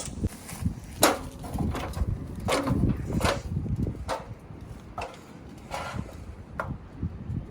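A series of irregular knocks and clatters, roughly one a second, over a low rumble.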